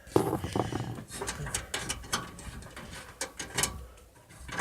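A screwdriver working screws loose in a metal PC case, giving a run of irregular sharp clicks and metal rattles.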